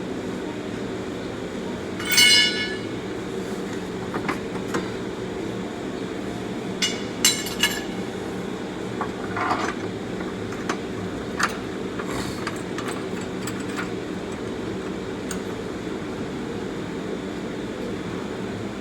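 Metal tools and bolts clinking against metal while a steering rack is bolted in: one ringing metallic clink about two seconds in, then a few sharp clicks, a short scrape and scattered light taps, over a steady low hum.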